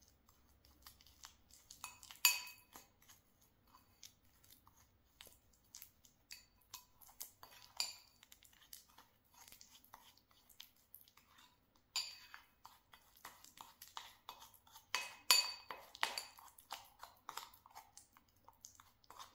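Metal spoon clinking and scraping against a ceramic bowl while mashing banana into honey and baking soda: irregular taps and scrapes, some with a brief ring, the loudest about two seconds in and again around fifteen seconds in.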